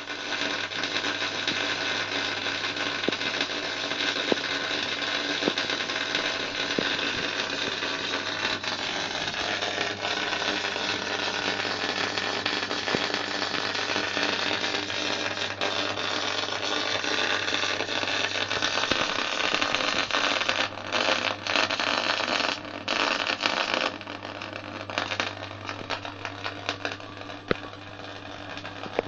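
Electric welding arc crackling steadily while a homemade welding manipulator turns a steel wheel, over a low steady hum. About twenty seconds in the crackle starts cutting out in short gaps, and from about 24 seconds on it is quieter and patchy.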